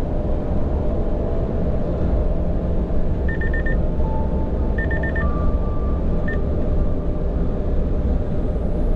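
Steady low engine and road rumble inside the cab of a Hino tractor-trailer truck cruising on the expressway, with a few short high electronic beeps between about three and six seconds in.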